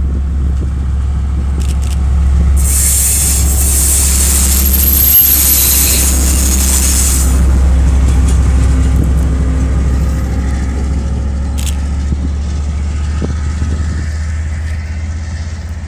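KiwiRail DL class diesel-electric locomotive running light with no wagons, its MTU V20 diesel engine giving a steady deep rumble as it passes close and then draws away, fading near the end. A loud hiss starts a couple of seconds in and stops sharply about five seconds later.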